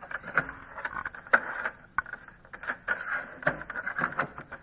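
Handling noise from the printer: a run of irregular small plastic clicks, knocks and scrapes as the cartridges and carriage area are worked by hand.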